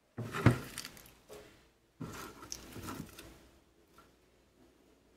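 Chopped spinach leaves dropped by hand into a slow cooker: soft patter and rustling, with one sharp knock about half a second in.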